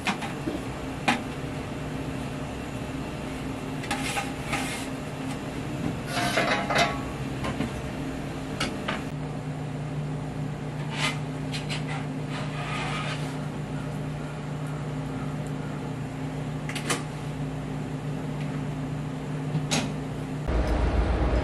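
Kitchen work sounds: scattered light clacks and knocks as a bamboo rolling mat and a metal tray are handled, over a steady hum from the kitchen's machinery. Near the end it cuts to a loud, low, steady rumble.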